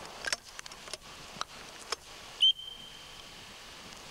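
Several sharp metallic clicks of a break-action shotgun being opened and reloaded between shots, then, about two and a half seconds in, one short, loud, high whistle note that trails off faintly.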